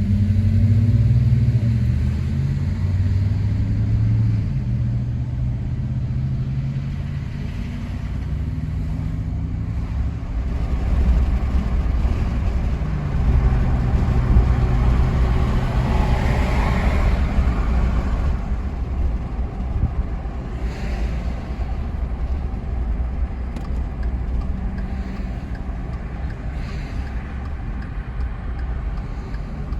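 An engine running with a steady low rumble. Its pitch shifts up and down through the first half, then settles.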